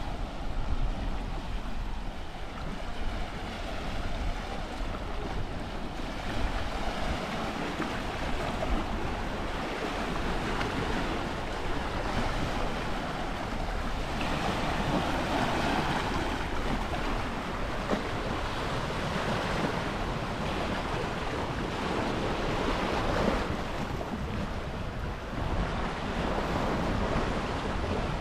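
Sea waves washing onto the shore, the surf swelling and easing every few seconds, with wind rumbling on the microphone.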